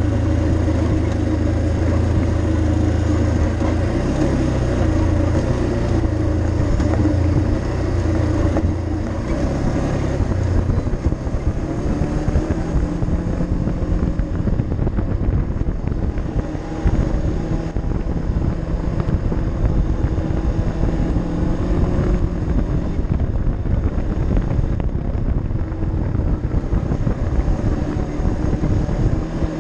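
ATV engine running as the machine is ridden along a rough dirt trail. Its note changes about ten seconds in, the strong low hum of the opening giving way to a more varied sound.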